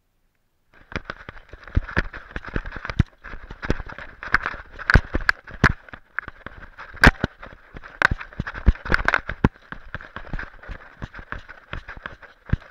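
Irregular knocks, rattles and rubbing from an action camera strapped to a running dog, jostled with every stride over snowy, rocky ground, starting about a second in.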